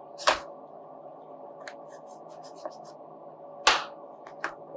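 Plastic retaining clips of a Lenovo Legion 5 Pro's bottom cover snapping loose as a plastic pry tool is worked along the edge: two loud snaps about three and a half seconds apart, with smaller clicks between and after. The clips are tight because the case is being opened for the first time.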